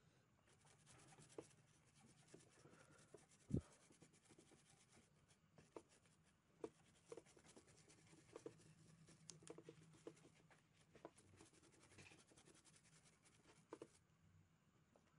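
Faint scratching and small clicks of a hand tool working on a circuit board, with one sharper click about three and a half seconds in.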